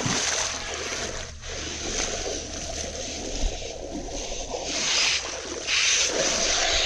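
Radio-controlled car driving through a muddy puddle, water splashing and spraying off its tyres over a steady high motor whine. The spray grows louder about five seconds in and again near the end.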